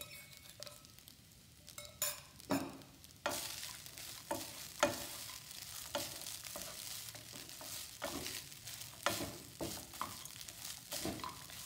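Wooden spatula stirring and turning cooked rice in a hot granite-coated frying pan: irregular scrapes and light knocks against the pan. A faint frying sizzle sets in about three seconds in.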